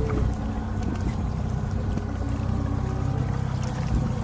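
Boat's outboard motor running steadily while trolling, a constant low drone.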